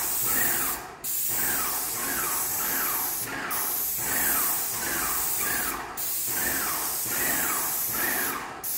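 Airless paint sprayer gun spraying primer onto drywall: a loud steady hiss that stops briefly four times between passes. A faint rhythmic pulse of about two a second runs underneath.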